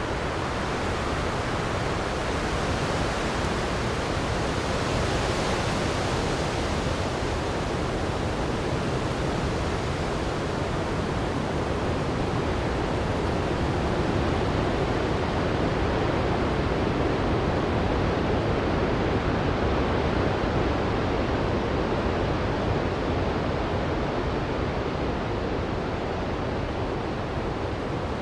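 Winter storm wind blowing as a steady, dense rush of noise, with no gusts standing out; its hiss brightens slightly around five seconds in and softens toward the end.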